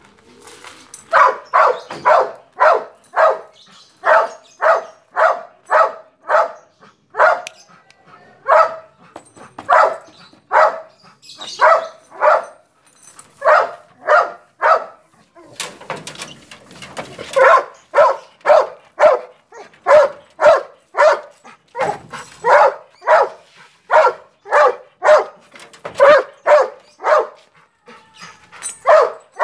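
A white terrier-type hunting dog barking over and over, about one to two barks a second in long runs with a few short breaks.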